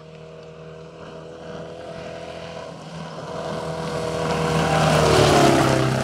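Rally car engine held at high revs, approaching on a dirt road and passing close by. It grows steadily louder to a peak about five seconds in, with a hiss of gravel and dirt thrown up by the tyres, and its pitch drops as it goes past.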